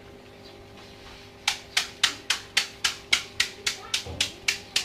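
A fast, even run of sharp slaps, about four a second, starting about a second and a half in.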